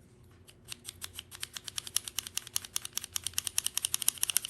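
Wooden puzzle-box pieces slid rapidly back and forth, clicking against each other in a quick rattle of about ten clicks a second that starts under a second in. The wax is being worked into the slides to smooth them up.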